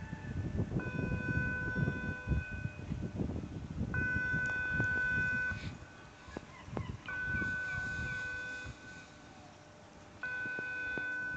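Warning signal of a swing footbridge: an electronic chime-like tone sounding in long beeps of about a second and a half, repeated four times, about every three seconds.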